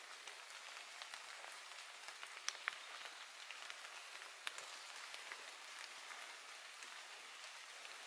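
Faint, steady patter of light rain on forest leaves, with a few sharp ticks of single drops.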